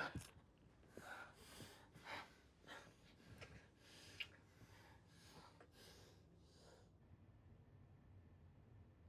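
A person breathing hard in quick, heavy gasps, about two breaths a second, which stop about seven seconds in. A short sharp noise comes right at the start.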